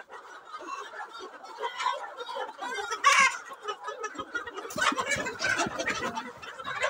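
Roosters and hens clucking and squawking as roosters are caught and carried by hand, with one loud, sharp cry about three seconds in. Children laughing near the end.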